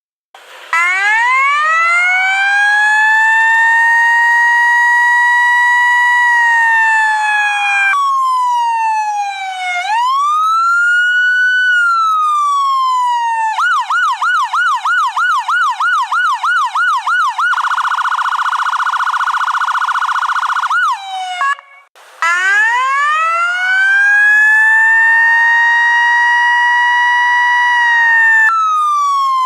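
Electronic emergency-vehicle siren cycling through its tones. First comes a slow wail that rises, holds and falls, twice. Then a fast yelp of about four sweeps a second, then a still faster warble, which breaks off briefly before the slow wail rises and falls again.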